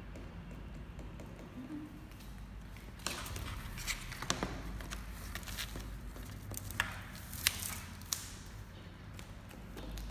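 Month-old kittens scampering and play-wrestling: soft patter and scrabbling of small paws and claws on a hard floor with a few sharp taps, busier from about three seconds in, over a steady low hum.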